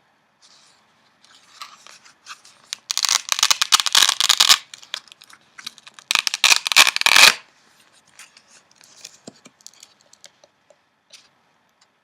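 Newsprint flier pages rustling and crackling as they are handled and turned. There are two loud bouts, about three and six seconds in, with soft small rustles and ticks between them.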